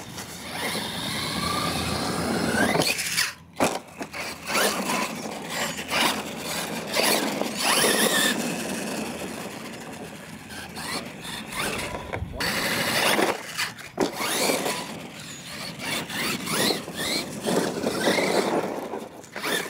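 Losi LMT radio-controlled monster truck driving on dirt on a 2S battery: its brushless electric motor whines up and down in pitch with the throttle, over the noise of the tires on the dirt.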